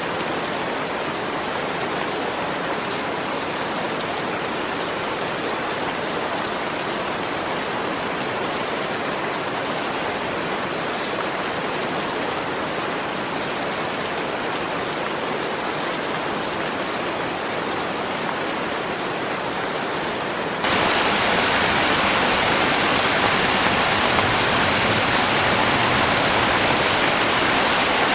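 Heavy rain pouring down steadily, a dense even hiss. About three-quarters of the way in it jumps abruptly louder.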